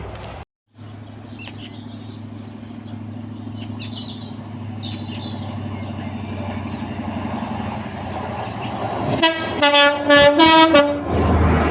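A train approaches, its engine a low steady drone growing louder, after a brief dropout just after the start. About nine seconds in, its multi-tone chime horn sounds in a quick series of short blasts lasting about two seconds. Then the rush of the train passing rises near the end.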